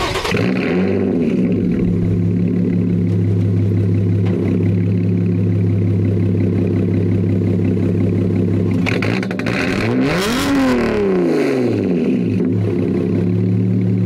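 Lotus Evora GT's supercharged V6 starting from cold, heard from behind its exhaust. It catches with a brief flare that rises and falls, then settles into a steady fast cold idle. About ten seconds in, one throttle blip rises and falls before it drops back to idle.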